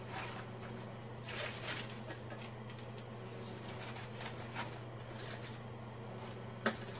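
Pechay leaves rustling softly as handfuls are lifted from a steel bowl and dropped into a cooking pot, over a steady low hum, with one sharp click near the end.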